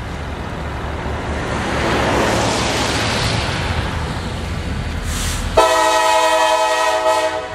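CSX diesel freight locomotive approaching, its engine and wheel rumble building, then its air horn sounds one steady multi-note chord blast of under two seconds about two-thirds of the way in.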